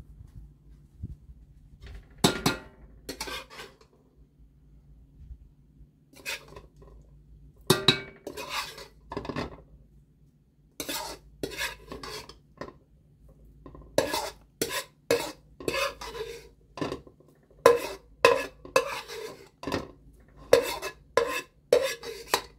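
Metal spoon scraping and knocking against a metal wok, scooping mixed vegetables out into a pot of rice. The clanks and scrapes come irregularly, sparse at first and about once or twice a second in the second half.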